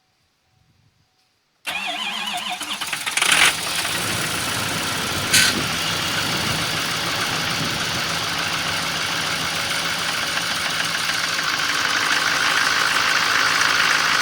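2015 Duramax 6.6 L V8 turbodiesel cold-starting with no block heater at a block temperature of about 13.5 degrees: it starts cranking suddenly about two seconds in, catches with two short loud bursts, and settles into a steady idle that grows slightly louder near the end.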